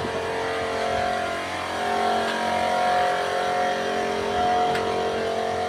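A motor vehicle engine running steadily with a constant hum, swelling slightly in level a couple of times, with one light click near the end.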